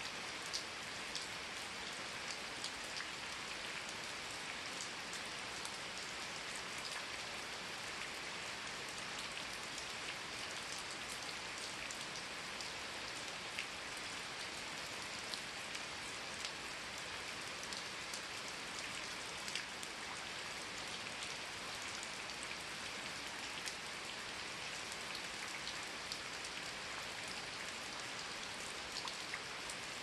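Steady rain falling on forest foliage: an even hiss with many scattered drops ticking close by.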